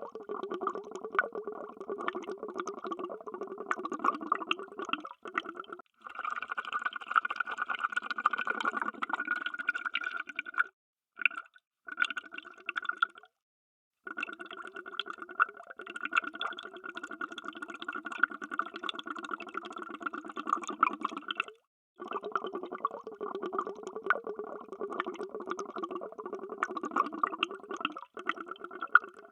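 Underwater bubbles streaming in a dense, rapid bubbling and gurgling, broken several times by brief dead-silent gaps where the recording cuts out.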